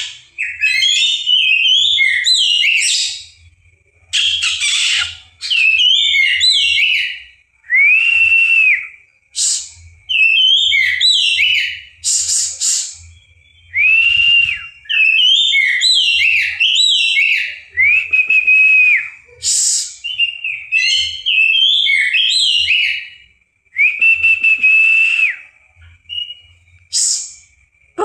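Oriental magpie-robin singing: phrases of quick, varied chirps and whistles, broken by short pauses, with several long held whistled notes.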